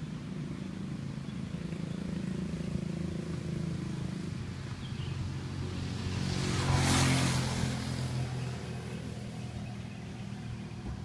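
Road traffic: a steady low engine hum, with one vehicle passing close by on the road, its tyre and engine noise swelling about six seconds in, peaking about a second later and fading away.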